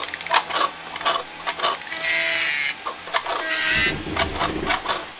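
Mechanical machine sound effects: a quick run of ratcheting clicks, then scattered clanks and clicks, two hissing bursts about two and three and a half seconds in, and a low rumble after the second.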